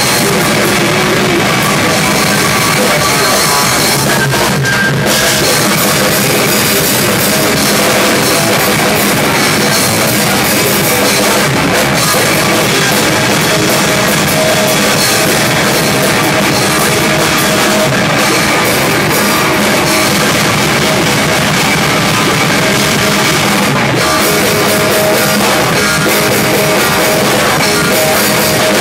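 Rock band playing live and loud: drum kit with cymbals and electric guitar, going without a break.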